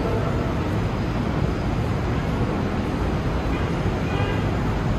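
Steady low rumble of vehicle noise.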